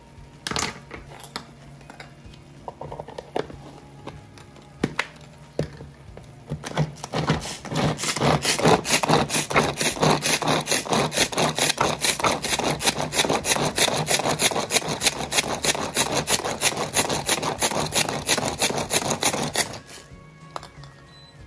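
A hand-pulled cord food chopper worked in quick, repeated pulls, its spinning blades chopping garlic, onion and seasoning peppers in a plastic bowl, a fast rhythmic rasping. The rasping starts about six seconds in and stops sharply near the end, after a few light clicks of the knife and lid before it.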